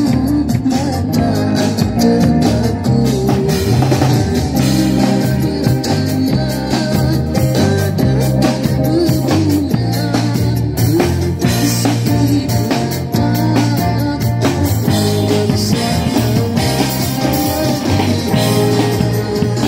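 Live rock band playing with a drum kit and an electric guitar through an amp, the bass lines and drum hits carrying steadily. The sound is loud and close.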